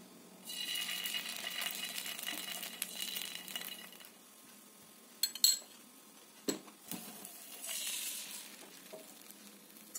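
Crepe batter sizzling as it hits a hot oiled nonstick frying pan: first as small drops of coloured batter go in, then again, more briefly, as the white batter is poured over them. In between come a few sharp clicks, the loudest sounds, and two duller knocks.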